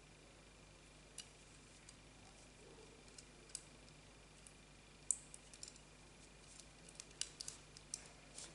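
Faint, scattered small clicks as fingers work the metal spring-clasp frame of a crochet bag at its hinge, where a stitch marker has got caught. The clicks come more often from about halfway through.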